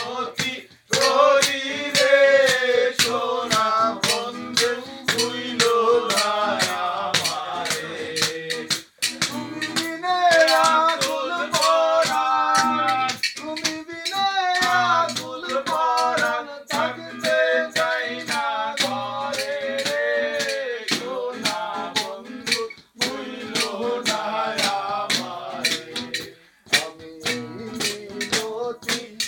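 Men singing a song together to an acoustic guitar, with a steel plate tapped as percussion in a steady beat about twice a second.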